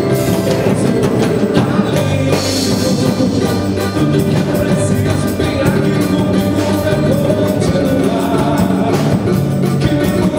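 Live gospel samba music: a man singing over a plucked samba banjo and cavaquinho, with mallet percussion keeping a steady, busy samba rhythm.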